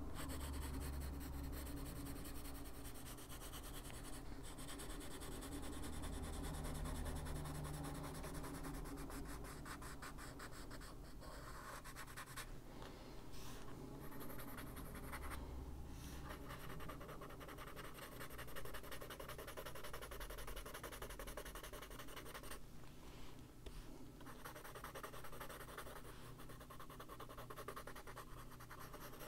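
Faber-Castell Polychromos coloured pencil scratching on paper in quick, short strokes, pausing briefly a few times.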